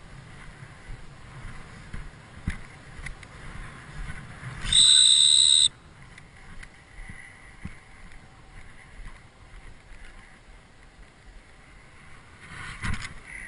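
A gun-dog training whistle blown once in a single steady, high-pitched blast lasting about a second.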